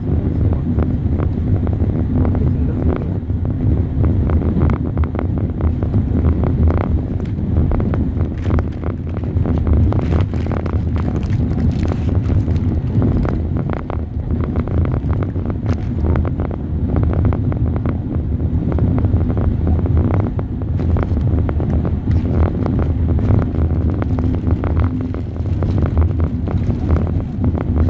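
Running noise of the Khyber Mail passenger train at speed, heard from aboard: a steady low rumble with frequent irregular clicks and knocks from the wheels and carriage, and wind noise on the microphone.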